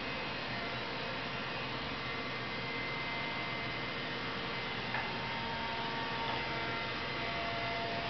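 Vacuum cleaner motor running with a steady, even hum, and one light knock about five seconds in.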